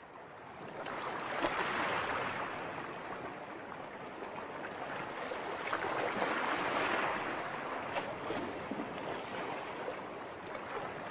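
Gentle sea waves washing up on a shore: a soft rushing that swells and recedes, peaking twice.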